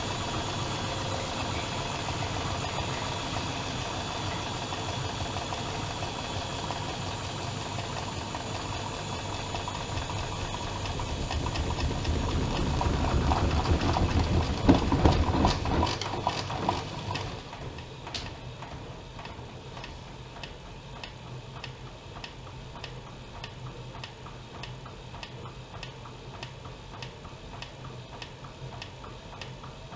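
Privileg Dynamic 7420 washing machine running with a steady motor hum that grows louder and rattles, then drops away suddenly about two thirds of the way in. A regular ticking continues after the drop over a faint hum.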